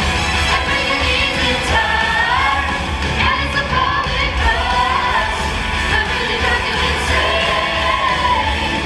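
Music from a live stage show: a singer over a loud backing track with a heavy bass line.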